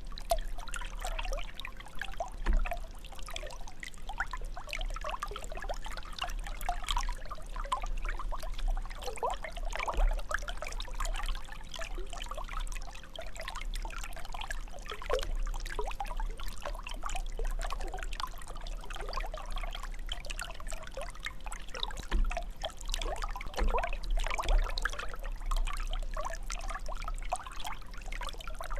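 Water jet from a fountain splashing and trickling steadily.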